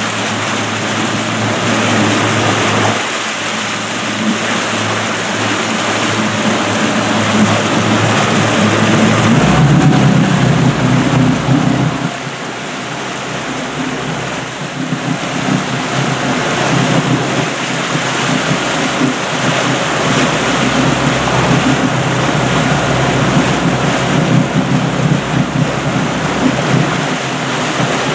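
Motorboat under way at speed: wind buffeting the microphone and the wake rushing and churning behind the stern, with the boat's engine running underneath.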